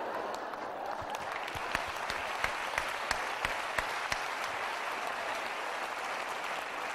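Audience applauding: many hands clapping in a steady patter, with a few sharper single claps standing out.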